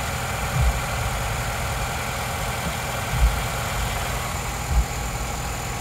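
A 2008 Nissan Sentra's engine idling steadily, with a freshly installed cold air intake. The intake's connections are just being checked for air leaks, and the owner finds them solid. A couple of brief, dull low thumps come over the hum.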